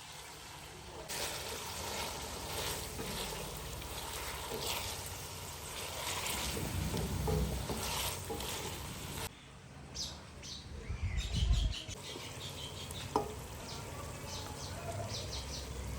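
Food sizzling in a hot pan while being stirred, with scattered scraping clicks. After about nine seconds it cuts off suddenly, leaving faint bird chirps, a brief low rumble and one sharp knock.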